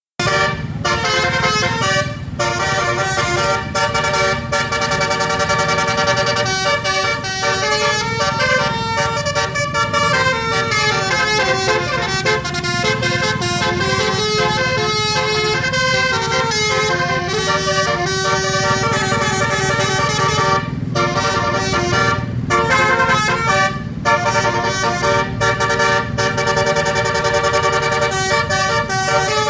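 Basuri-type 12-note telolet bus horn with roof-mounted trumpets playing a tune, stepping from note to note, with short breaks about 2 seconds in and a few more in the second half. A steady low rumble runs under it.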